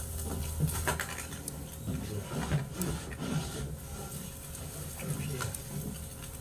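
Wood fire under a barbecue grill crackling, with a few pops, over a low murmur of voices.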